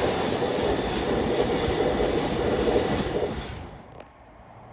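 A freight train of oil tank wagons passing on the track, with a steady loud rumble of wheels and wagons. The noise fades away about three and a half seconds in as the train goes by, and a faint click follows.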